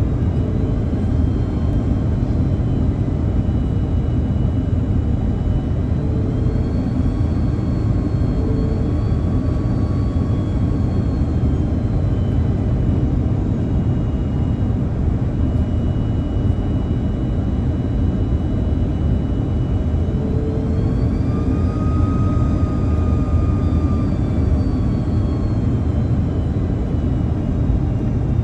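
Cabin noise of an Airbus A330-203 on approach, heard from a window seat beside its General Electric CF6-80E1 turbofan: a steady jet roar with a thin engine whine on top. The whine rises in pitch about six seconds in and again about twenty seconds in, then settles back, as the engines spool up and down.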